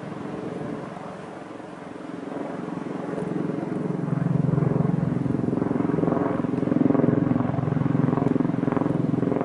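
Helicopter flying overhead: a steady thrum of rotor and engine with a fast, even beat of the blades, growing louder about three to four seconds in.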